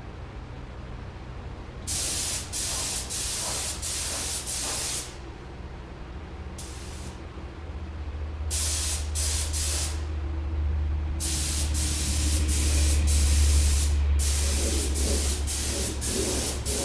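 Paint spray gun hissing in bursts as the trigger is pulled and released on passes along a car frame: a run of short bursts about two seconds in, then longer, steadier passes in the second half. A steady low hum runs underneath.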